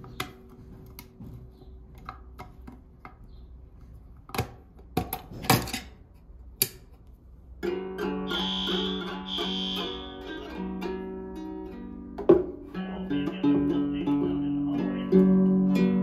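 Ukulele strings ringing out as an arm brushes across them about halfway through, then sounding again a few more times. Before that, a few sharp clicks.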